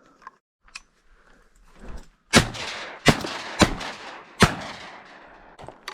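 Four 12-gauge shotgun blasts from Winchester SX4 semi-automatics in quick succession, all within about two seconds starting a little over two seconds in, each followed by a rolling echo. The hunters are firing at ducks passing over the decoys.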